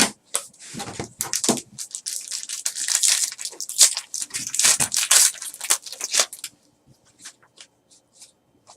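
Trading card pack wrapper torn open and crinkled: dense rustling and tearing for about six seconds, then a few faint clicks as the cards are handled.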